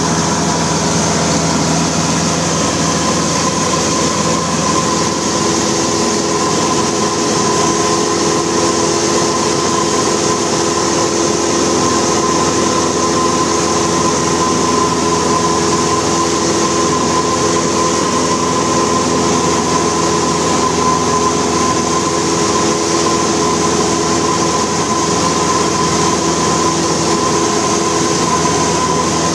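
Cessna 172 Skyhawk's piston engine and propeller droning steadily in flight, heard from inside the cockpit, with a constant pitch and a rushing airflow noise over it.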